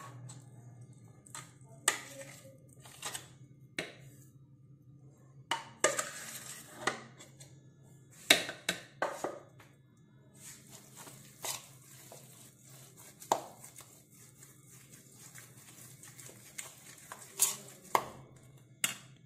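Metal spoon stirring and scooping a thick minced chicken mixture in a plastic bowl: irregular sharp clicks and short scrapes as the spoon knocks and drags against the bowl.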